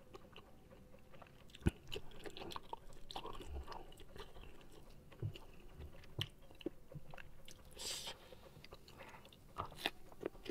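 Close-miked chewing of a mouthful of rice and raw watercress, with soft wet mouth clicks and a few crisp crunches; one sharper click comes just under two seconds in.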